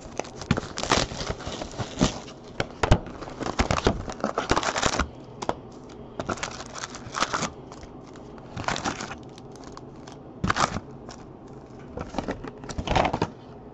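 Foil-wrapped 2015 Topps Chrome football card packs crinkling and rustling, with tearing, as a hobby box is opened and its packs are pulled out and stacked. The rustling is dense for about the first five seconds, then comes in short separate bursts.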